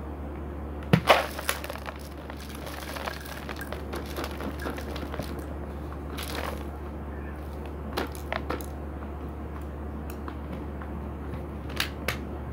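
Scattered sharp crunches and cracks of dry seed hulls and pellets being crushed on a rug, loudest about a second in and twice near the end, over a steady low hum.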